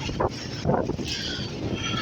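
Thunderstorm noise: rain with gusty wind buffeting the microphone, and a brief higher-pitched sound about a second in.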